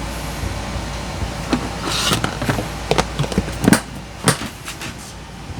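Handling noises: a few sharp clicks and knocks with some rubbing and scraping, over a steady low hum.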